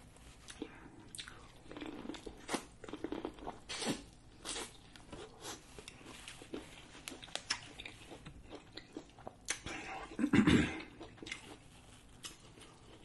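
Close-up mouth sounds of chewing a mouthful of grilled corn on the cob: irregular wet clicks and smacks, with one louder, longer sound about ten seconds in.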